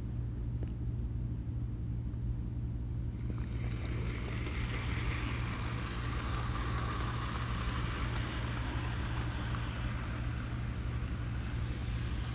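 Bachmann Gordon model train locomotive's electric motor and wheels whirring along the track while it pulls its express coaches, growing louder about three seconds in, over a steady low hum.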